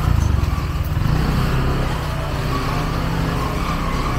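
A motor vehicle engine running steadily close by, with outdoor street noise.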